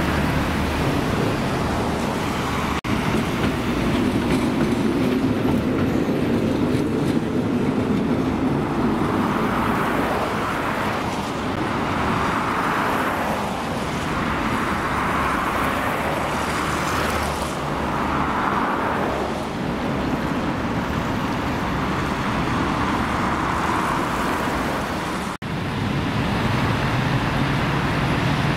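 City tram running past amid road traffic noise. Its rumble rises and fades, and the sound breaks off abruptly twice.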